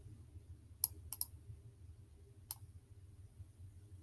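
Computer mouse clicking while selecting text: a single click, a quick double click, then one more click over a second later.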